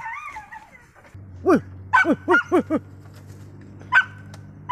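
Tracking dogs barking: a single bark about a second and a half in, then a quick run of about five barks, then single barks near the end. A low steady hum runs underneath from about a second in.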